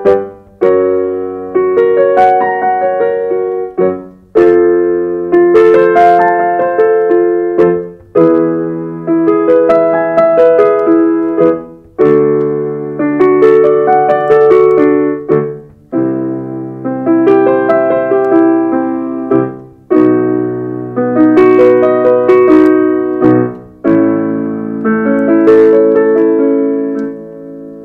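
Piano playing the accompaniment for a singing warm-up in tenths: a short phrase about every four seconds, each opening with a struck chord, repeated in a new key each time.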